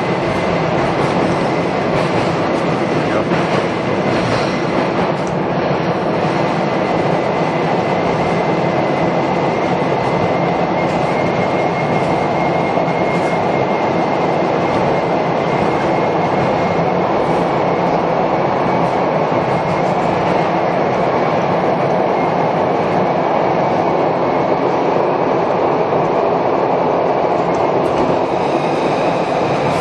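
SEPTA Broad Street Subway train running through a tunnel, heard from inside the car: a loud, steady rumble of wheels on rail, with a faint high whine through the middle.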